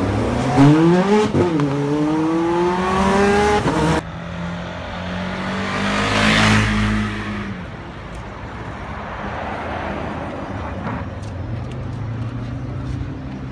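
Ferrari F430's V8 revving hard as the car accelerates away, its pitch climbing, dipping at an upshift about a second in and climbing again, until the sound cuts off abruptly about four seconds in. Then a motor scooter passes close by, and a car engine runs low and steady at slow speed.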